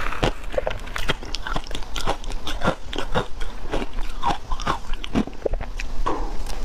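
Close-miked crunching and chewing of shaved ice topped with matcha powder: a dense run of irregular crisp crunches, mixed with a metal spoon digging through the ice in a glass bowl.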